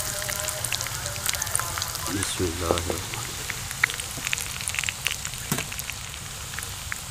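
Breaded chicken nuggets frying in hot oil in a shallow pan: a steady sizzle with many small crackling pops as the oil bubbles around them.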